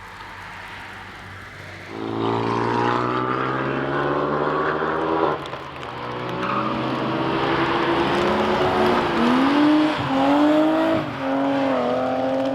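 Car engines on a race track: one car passes loud at steady high revs, then another accelerates hard, its engine pitch climbing and dropping back at each gear change.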